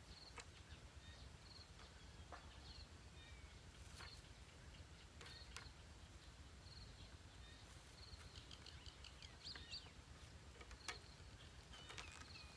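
Near silence: quiet outdoor ambience with faint, short high chirps repeating every second or so, more of them near the end, and a few light clicks.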